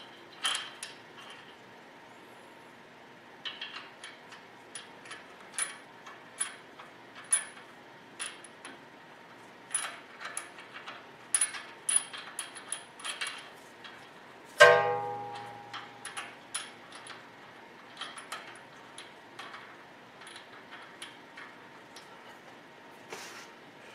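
Small metal clicks and clinks at an uneven pace as the washer and nut are fitted by hand onto the uniball bolt of an aftermarket upper control arm. About fourteen seconds in there is one louder, ringing metallic clink.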